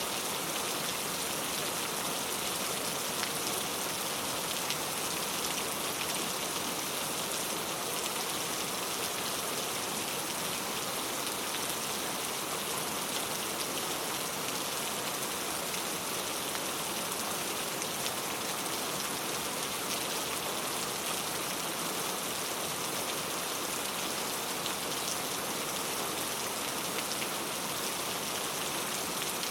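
Steady rain falling, an even hiss of drops with many small patters, unchanging throughout.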